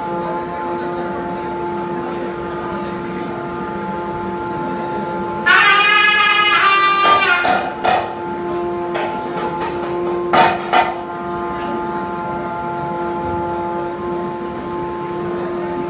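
Steady droning ritual music during a bhuta kola. About five and a half seconds in, a loud, high, wavering pitched call sounds for about two seconds, followed by a few short sharp sounds.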